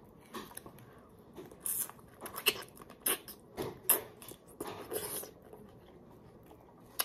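Mouth sounds of a person biting into and chewing a Marian plum (maprang): a string of short smacks and chews that dies away after about five seconds.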